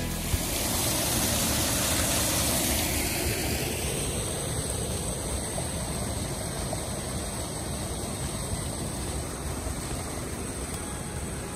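Steady rush of falling and flowing water from a garden waterfall, hissier in the first few seconds and then softening to a duller rush.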